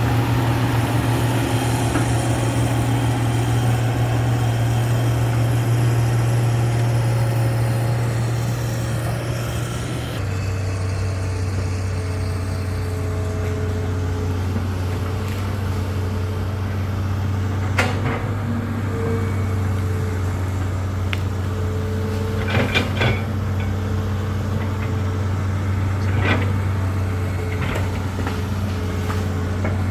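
Large hydraulic excavator's diesel engine running steadily during land clearing. Its note drops to a lower pitch about a third of the way through. Several sharp knocks follow in the second half.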